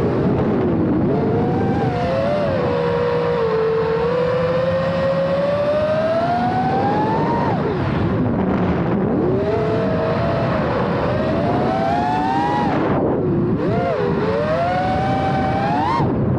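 FPV quadcopter's electric motors and propellers whining over a rushing noise. The pitch climbs and falls with the throttle, dropping sharply twice and rising again.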